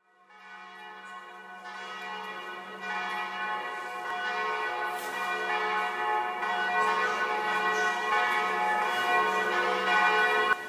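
Church bells ringing, many overlapping long-ringing tones over a steady low drone. The sound fades in from silence, grows louder, and is cut off sharply shortly before the end.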